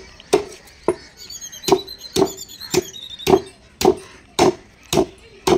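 Large knife chopping into a big catla fish on a wooden log block: sharp, even strikes about two a second, with a short pause about a second in.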